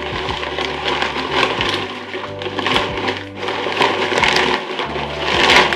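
Crinkling plastic and rustling wing fabric as the old inflatable leading-edge bladder is pulled out of the wing's leading-edge sleeve, with irregular crackles. Background music with held bass notes plays underneath.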